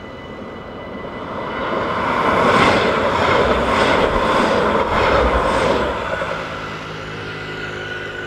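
A tram passes close through a level crossing, its rumble and rail noise rising to a peak about two seconds in, with several clacks of the wheels over the crossing's rails, then fading after about six seconds. The crossing's warning bell rings steadily underneath.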